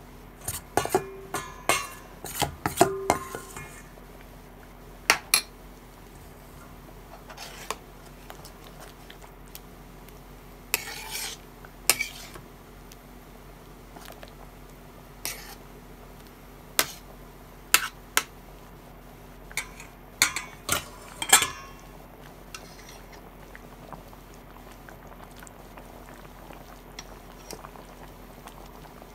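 A metal spoon clinking and scraping against a stainless steel pot while stirring a thick stew, in irregular clusters of knocks: busiest in the first few seconds, again around 11 seconds and around 20 seconds in.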